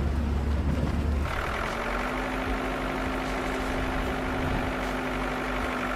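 Heavy machine's diesel engine running steadily. A deep low rumble fills the first second, then gives way abruptly to a steadier, higher engine note.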